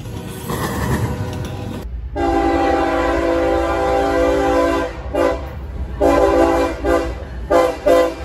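A freight train rolling past. About two seconds in, a CSX freight locomotive's multi-chime air horn sounds one long blast of nearly three seconds, then several shorter blasts, as the train approaches.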